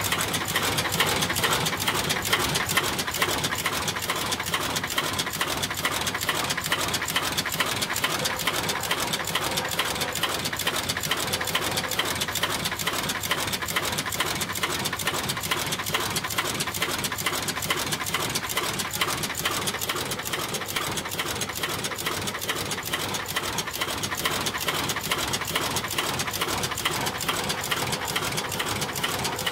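Automated LED bulb assembly machine running, with a rapid, even mechanical clatter of clicks that keeps a steady pace.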